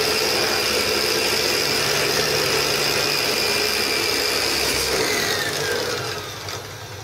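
Angle grinder driving a homemade spindle drum sander, running steadily with a high whine, then winding down about five seconds in, its whine falling in pitch as it spins to a stop.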